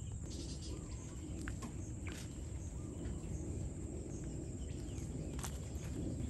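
Outdoor ambience of an insect chorus: a steady high, thin chirring. It sits over a low rumble of wind, with a few faint ticks.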